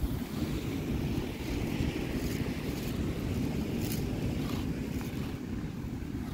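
Wind buffeting the microphone in a steady low rumble, with the wash of ocean surf behind it.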